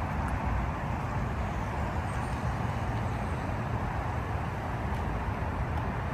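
Steady outdoor background noise with a low rumble, like distant road traffic, unchanging throughout.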